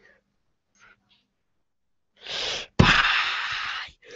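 After about two seconds of near silence, a person lets out two loud, breathy bursts of air right into a headset microphone: a short one, then a longer, louder one.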